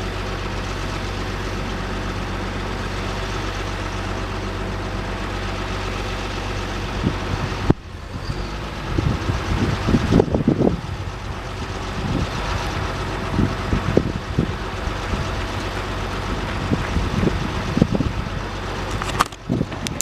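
A 2006 GMC C7500 truck's engine idling steadily. After an abrupt break about eight seconds in, it keeps running under irregular low bumps and rumbles. Another short break comes near the end.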